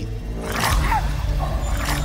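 A small Maltipoo-terrier mix dog snarling and growling twice over tense background music.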